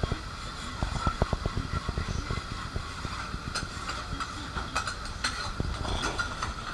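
Okonomiyaki sizzling on a hot teppan griddle, a steady hiss, with frequent light clicks and taps of metal spatulas on the iron plate.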